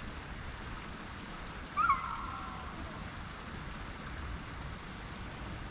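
Steady low wind rumble on the microphone, with one short high-pitched animal call about two seconds in that rises quickly and then holds level for about a second.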